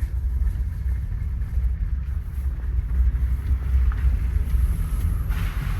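Steady low rumble of a 2012 Toyota Sienna minivan heard from inside the cabin as it makes a slow, sharp right turn, with no clunk from the suspension. A brief rush of noise comes near the end.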